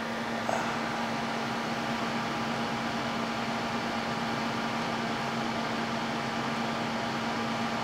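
Cooler Master Hyper 212 Plus CPU cooler fan running steadily inside a desktop PC, heard close up through the case's mesh panel: an even white noise with a steady low hum beneath. A small click about half a second in.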